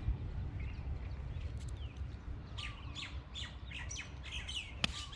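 Birds chirping, a rapid run of short high calls starting about halfway through after a few faint calls, with one sharp click near the end.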